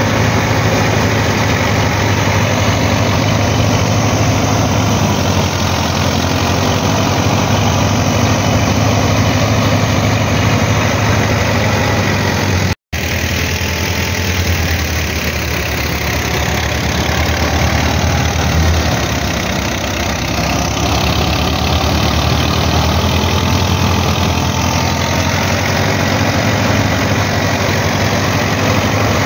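Massey Ferguson 240 tractor's three-cylinder diesel running steadily under load, turning a wheat thresher through its PTO shaft, with the thresher's drum and blower rushing as straw is fed in. The sound drops out for a moment near the middle.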